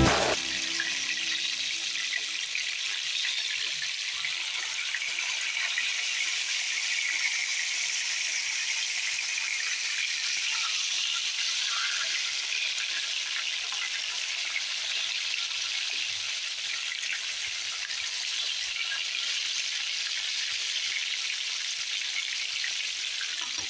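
Hot oil sizzling steadily around whole fish shallow-frying in a pan.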